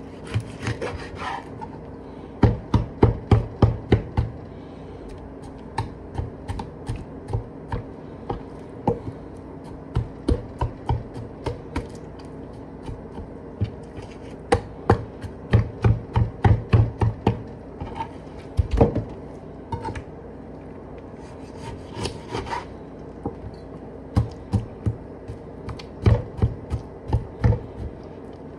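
Large kitchen knife cutting and chopping raw chicken on a wooden cutting board: runs of quick knocks of the blade on the board, several a second, with a couple of short scraping sounds.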